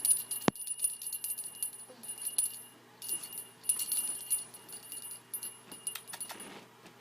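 Small jingle bells on a Christmas decoration jingling in irregular bursts as a cat paws and bats at it, with light clicks among the ringing.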